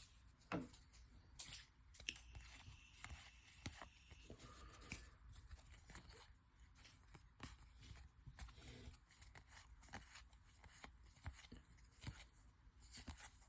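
Faint rustling and soft clicks of 2021 Topps baseball cards being handled and flipped through, with scattered small crinkles of pack wrapper.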